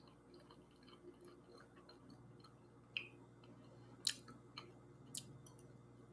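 Quiet mouth sounds of someone chewing scrambled eggs, with a few small sharp clicks, the loudest about three and four seconds in, over a low steady hum.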